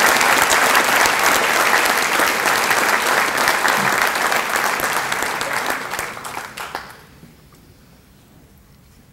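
Audience applauding, a dense clatter of many hands that tapers off and dies away about seven seconds in.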